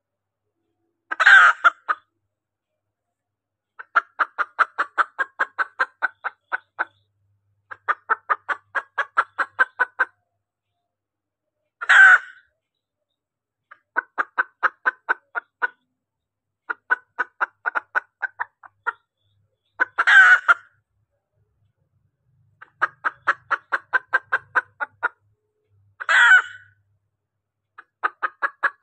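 Recorded lure call of a female green junglefowl, meant to draw in a male: runs of rapid clucks, about four a second and each run two to three seconds long, broken four times by a short, loud, harsh call.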